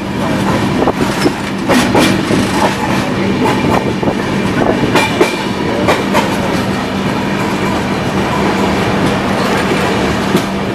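Rajdhani Express passenger coach running at speed, heard from its open doorway: a steady running rumble and hum with the wheels clacking over rail joints, the sharpest clacks about two seconds and five to six seconds in.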